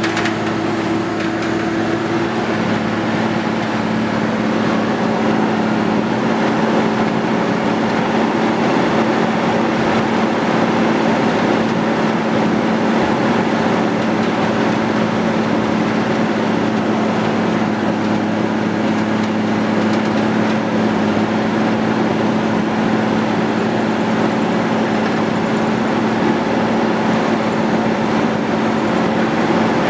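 Diesel engine of a Timberjack 450C cable skidder running steadily as the machine travels, heard from inside the cab. It is a continuous drone whose tone shifts slightly about two seconds in.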